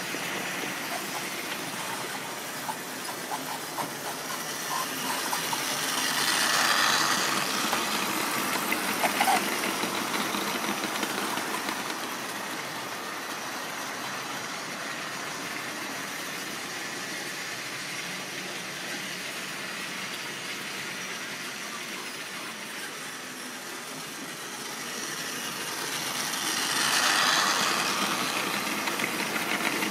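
Tri-ang model trains running on the layout's track, a steady mechanical running noise that swells twice, about seven seconds in and near the end, as trains pass close by, with a few short clicks about nine seconds in.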